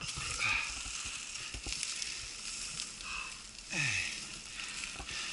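Mountain bike rolling over a dirt forest trail: knobby tyres crackling over leaf litter and twigs, with scattered clicks and rattles from the bike, and a short falling sound about four seconds in.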